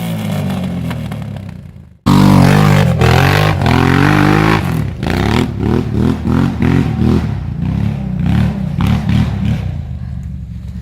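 Can-Am Outlander 800 ATV's V-twin engine revving. A rev dies away, then about two seconds in the sound cuts abruptly to a loud run of quick throttle blips, each rising and falling in pitch, easing back toward idle near the end.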